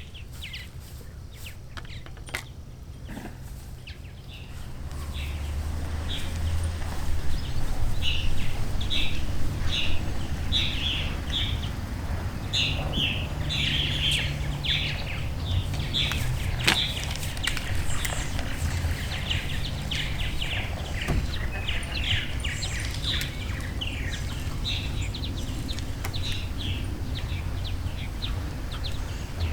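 Small birds chirping in quick repeated phrases, with a steady low rumble underneath that grows louder about five seconds in.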